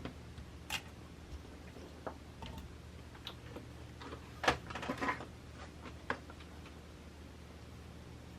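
Scattered small clicks and ticks of craft wire and beads being handled while wire-wrapping, irregular and light, the sharpest about four and a half seconds in. A faint steady low hum sits underneath.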